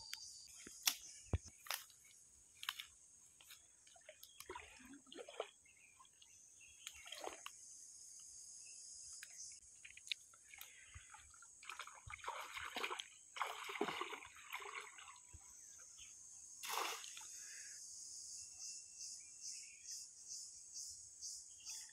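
Shallow stream water sloshing and splashing now and then as a man wades and works brush and a bamboo fish trap into place. Behind it is a steady high-pitched insect drone.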